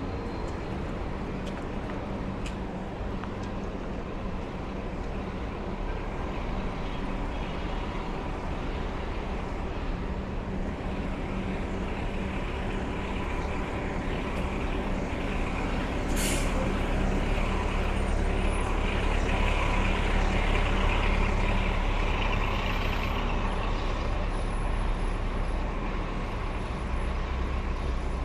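Street traffic with a heavy vehicle's engine running, getting somewhat louder in the second half, and one short, sharp air-brake hiss about sixteen seconds in.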